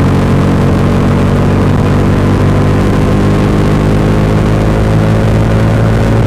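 Bajaj Dominar 400's single-cylinder engine running through its stock exhaust, holding a steady pitch.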